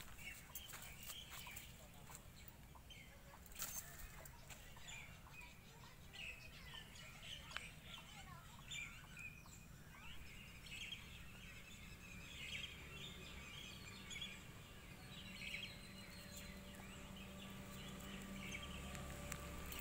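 Faint outdoor ambience of birds chirping on and off, with an occasional brief click.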